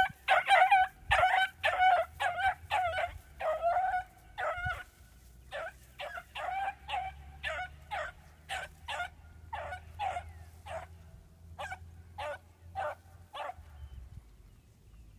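A dog barking and yelping over and over, about two barks a second, loud at first and then fainter as it works away: a young dog giving voice while learning to follow a scent.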